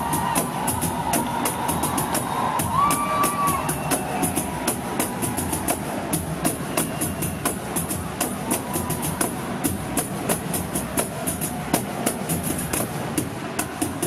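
Several pandeiros, Brazilian frame drums with metal jingles, played together in a driving rhythm: crisp jingle hits several times a second over the deeper slap of the drumheads.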